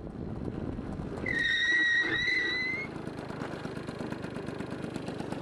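Motor scooter running, with a high, steady brake squeal starting about a second in and lasting about a second and a half as the scooter slows for a stop.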